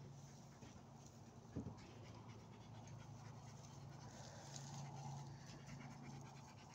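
A dog panting faintly over a steady low hum.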